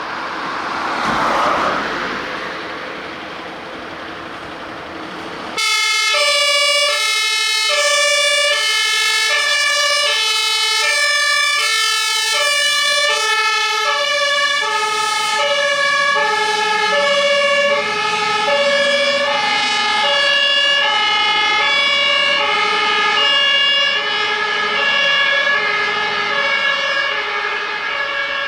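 A fire engine's two-tone siren (Martinhorn) switches on abruptly about six seconds in and keeps sounding, alternating between a low and a high note roughly every 0.7 seconds. Before it, a rushing vehicle noise swells and fades.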